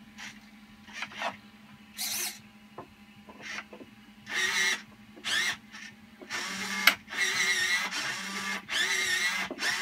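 Hobby servo motors whirring in several short bursts as they swing an R2-D2 replica's gripper arm out of its door, over a steady low hum, with a sharp click near the longest run.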